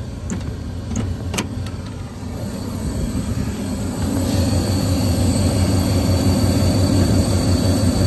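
Metal latch clicks as the access panel of a York gas package unit is opened, then the unit's draft inducer motor running steadily, growing louder as the compartment is uncovered. The inducer runs while the burners stay off, a sign of the furnace control being locked out.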